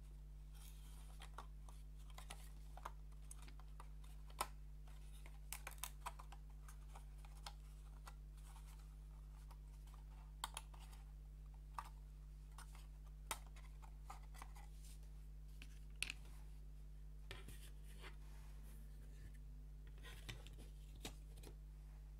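Pieces of a wooden 3D puzzle being handled and fitted together: scattered light clicks and taps at irregular intervals, the sharpest about 4 seconds in and again near 16 seconds. A faint steady low hum runs underneath.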